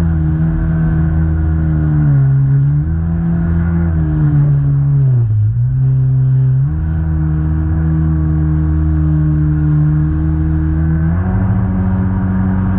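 Jetski engine running under varying throttle. Its pitch dips about two seconds in and drops low about five seconds in as the throttle eases off, then picks up and holds steady, rising again near the end.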